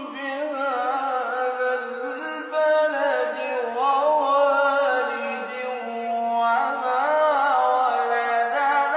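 A man reciting the Quran in a melodic, chanted style, drawing out long phrases with wavering ornaments and held notes.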